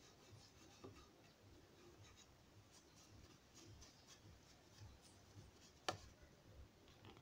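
Faint, scratchy strokes of a paintbrush brushing polish onto a hardwood stool's legs, with one sharp tap about six seconds in.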